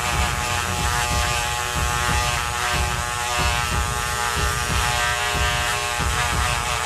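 Dremel rotary tool running steadily with a small brush bit, scrubbing corrosion off the keypad contact pads of a water-damaged microphone circuit board.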